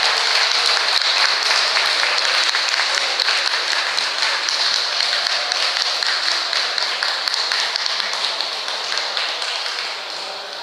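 Audience applauding: dense clapping that slowly dies down toward the end.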